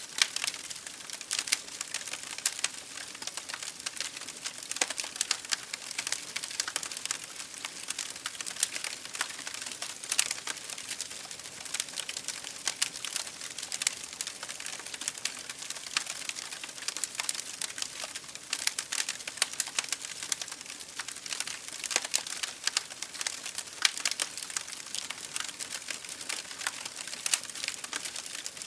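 Wood fire in an open fireplace burning and crackling, with many sharp irregular pops and snaps over a steady soft hiss.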